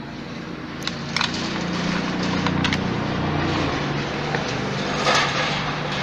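Plastic vacuum housing parts being fitted together by hand: a few sharp clicks and knocks, then scraping of plastic against plastic near the end, over a low steady hum.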